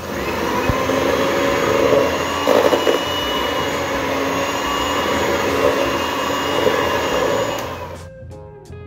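Electric hand mixer running at low speed, its beaters churning a thick mix of butter, margarine, grated cheese and sugar. It runs steadily for about eight seconds, then winds down and stops, and guitar music comes back near the end.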